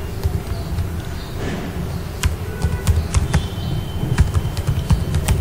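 Typing on a computer keyboard: a run of irregular key clicks starting about two seconds in, over a steady low hum.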